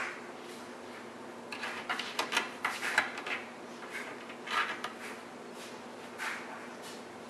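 Cat clawing at the bottom edge of a kitchen cabinet door: a run of quick scratches and taps as the door knocks lightly against its frame, heaviest in the first half, then two shorter bursts. A steady low hum runs underneath.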